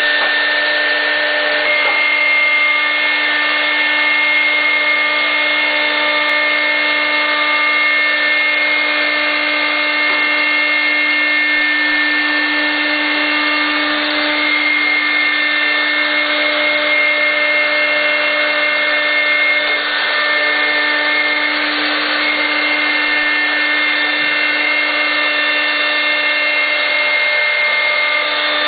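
3-axis CNC wood router spindle running at a steady speed, its bit milling into a glued-up wooden panel: a steady high whine over the hiss of the cut.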